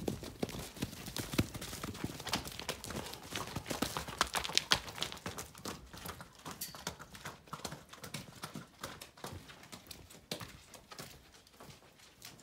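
Hooves of several horses galloping in across a farmyard, a dense run of hoofbeats that is loudest around the middle and thins out toward the end as they slow.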